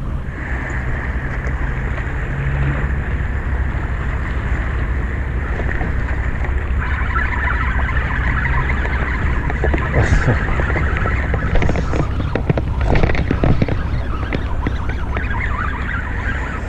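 Spinning reel being cranked steadily to retrieve line, its gears whirring, with a few clicks partway through. A low rumble of wind on the microphone lies under it throughout.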